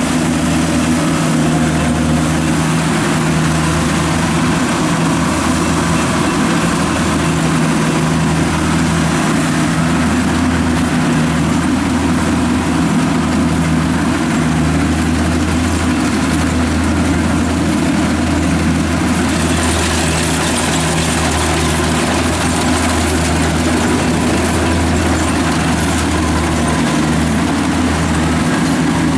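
Kubota combine harvester's diesel engine running steadily at working speed. A brighter hiss joins about twenty seconds in.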